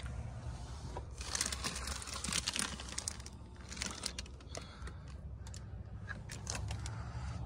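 Plastic protective seat covers crinkling in several bursts as they are brushed and pushed against, over a low steady rumble.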